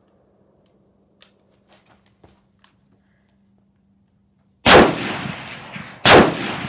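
Two rifle shots about a second and a half apart near the end, each loud and sharp with a trailing echo, preceded by a few faint clicks.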